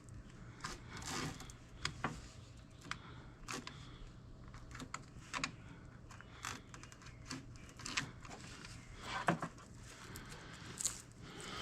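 Scrap wire being handled and stripped by hand: scattered clicks and short scrapes of wire and insulation, irregular, with a louder cluster about nine seconds in.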